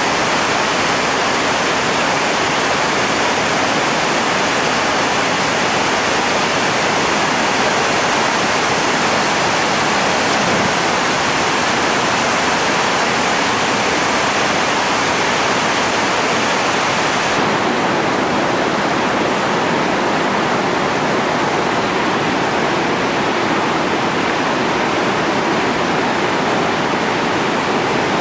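Steady rush of whitewater rapids and ledge drops on the Chauga River, loud on the microphone. About two-thirds of the way through, the highest hiss drops a little.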